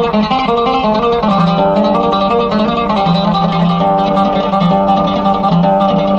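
Instrumental music: a melody on a plucked string instrument over a steady low note, with no singing.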